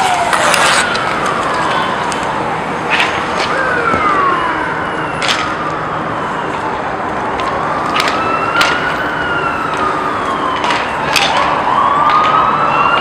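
Emergency vehicle siren in a slow wail, its pitch rising and falling over several seconds at a time. Sharp clacks of hockey sticks and the puck against the rink's floor and boards break in now and then.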